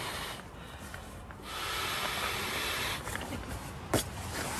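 Nylon sleeping bag and its stuff sack rustling as they are handled and the bag is pulled out, with one sharp click near the end.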